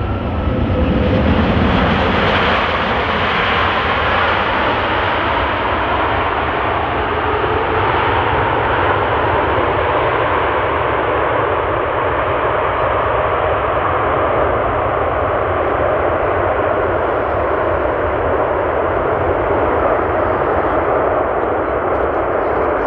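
Jet engines of an Airbus A380 running loud as the airliner rolls along the runway past and away, a dense steady rush of engine noise that swells in the first couple of seconds and then holds.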